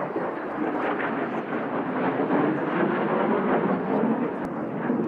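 F-16 jet engine noise from a fighter flying past, a steady rushing rumble that grows a little louder.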